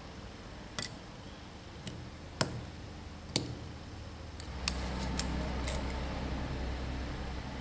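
Sharp metallic clicks of circlip pliers and a retaining ring against the steel seal housing of a high-pressure pump plunger. The clicks come a few at a time, then the housing is handled and rubbed. A louder click with a short high ring comes a little before the end.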